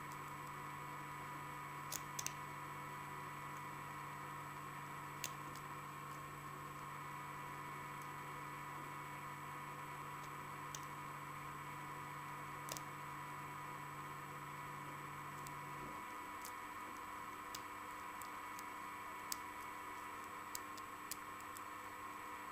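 Faint, scattered clicks of a lock pick and tension wrench working the pin tumblers of an American Series 1105 padlock during single-pin picking, over a steady electrical hum. A low part of the hum cuts off about sixteen seconds in.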